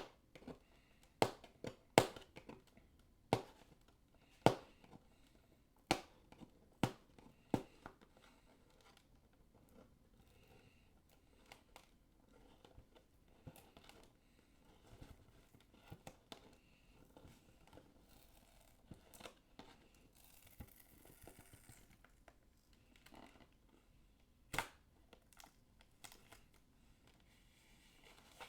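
Action-figure packaging of cardboard and plastic being opened by hand: a series of sharp clicks and snaps in the first several seconds, then quieter rustling and crinkling, with a brief tearing sound about twenty seconds in and one more sharp snap near the end.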